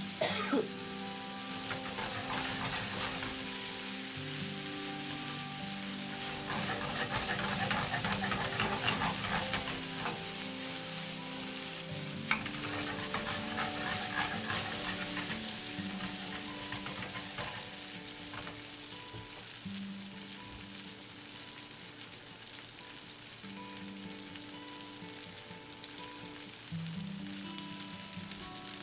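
Food sizzling as it fries in a pan, busiest about a third of the way in, with a few sharp clicks of a utensil.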